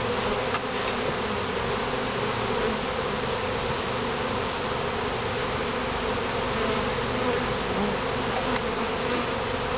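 Honeybees buzzing steadily as a dense swarm around an open top bar hive, a continuous hum with no breaks.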